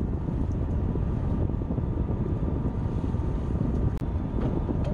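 Wind buffeting the microphone on the deck of a fishing boat at sea, a steady low rumble with the boat's engine hum underneath, and a faint click about four seconds in.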